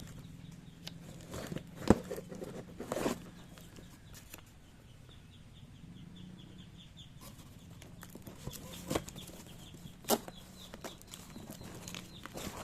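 Small electric fan motor humming steadily, with several sharp knocks and a quick run of light ticks partway through.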